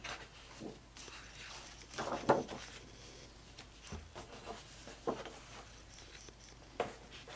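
Stiff double-weight fiber-based photographic prints being handled and swapped: paper sliding and rustling against the stack, loudest about two seconds in, with a few softer rustles and taps later.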